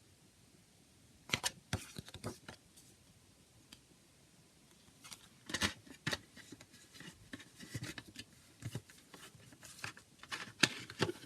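A plastic CD case being handled, giving short clicks and rattles: a cluster about a second in, then a longer run of clicks from about five seconds in.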